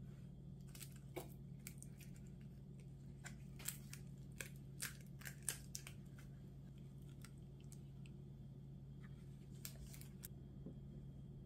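Faint soft clicks and rustles of hands folding thin crepes on a wooden cutting board, busiest in the first half and again briefly near the end, over a steady low hum.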